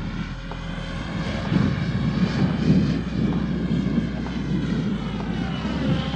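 XLPower 550 electric RC helicopter in flight: the motor and rotor blades make a steady whine that drifts up and down in pitch. Gusting wind buffets the microphone with a low, fluttering rumble.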